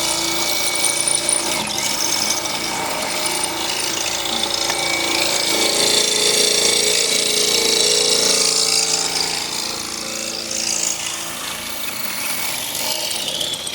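Milwaukee power drill running continuously, its bit boring into a steel wheel stud and lug nut. The drilling is steady and eases a little in the last few seconds.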